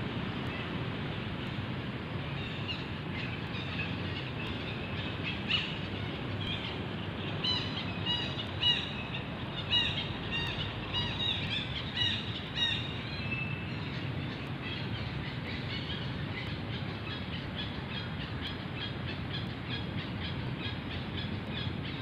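Steady low outdoor background noise, with runs of short, high chirping calls from about three to thirteen seconds in.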